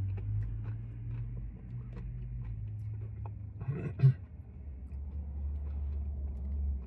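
A person chewing a crunchy cookie-crumb ice cream parfait, with soft crunches, over the steady low hum of an idling car. A short clack comes about four seconds in.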